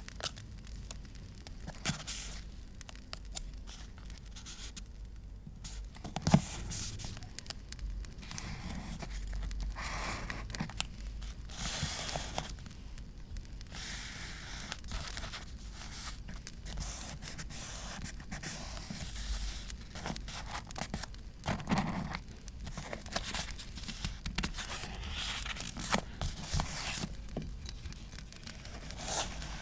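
Paper being torn, crinkled and handled in art journaling, in irregular rustling bursts with a few sharp clicks.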